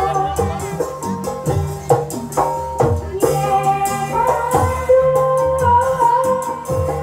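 Javanese ebeg dance music: a gamelan-style ensemble with kendang hand-drum strokes and a singer holding long, slightly wavering notes.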